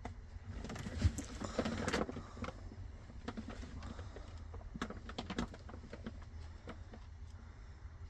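Scattered light clicks and rustles, densest in the first two seconds and sparser after, over a steady low rumble.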